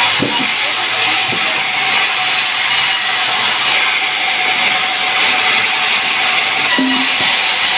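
Sawmill saw running through a sengon log, a loud steady rasping cut with a few light knocks.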